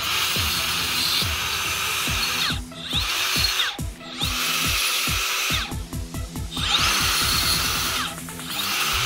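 Makita 18V cordless angle grinder grinding a cut steel greenhouse pipe smooth, a high hissing whine that breaks off briefly several times as the disc comes off the metal. Background music with a steady beat runs underneath.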